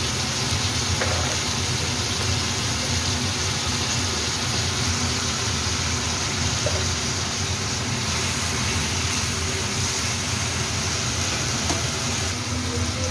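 Sliced cucumber and meatballs sizzling steadily in a hot wok, over a steady low hum.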